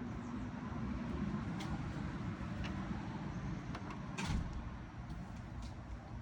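Handling noise from toys being moved about: a low rumble with scattered light clicks and one sharper knock about four seconds in.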